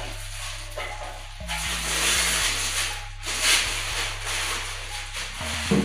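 Clear plastic wrapping crinkling in bursts as it is handled and pulled off small bookshelf speakers, over background music with a steady bass line.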